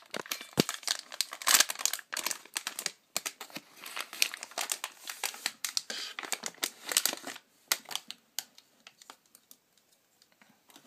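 Crinkling and rustling of a white packaging wrapper being unfolded and handled, with dense crackles for about the first seven seconds, then sparser, quieter handling sounds near the end.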